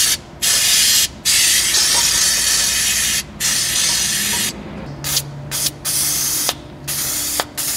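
Aerosol spray cans hissing in a series of bursts of varying length with short pauses between: brake cleaner, then penetrating oil, sprayed onto a stuck AC compressor pulley.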